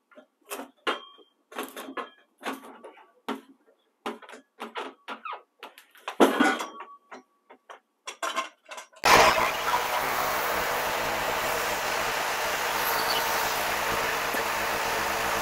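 A run of short, irregular scrapes and knocks of hands and tools working on a log. About nine seconds in, a Wood-Mizer LT10 bandsaw sawmill cuts in abruptly and runs with a loud, steady mechanical drone.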